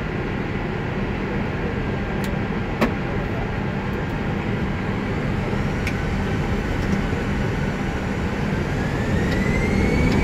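Airbus A319 flight deck hum of engines and air systems, with a sharp click about three seconds in. Near the end a rising whine sets in and levels off as the jet engines spool up, and the sound grows louder.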